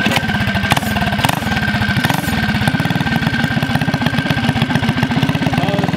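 Minibike's built 225cc single-cylinder engine catching right at the start and then idling steadily, with a thin high whine over the rapid firing.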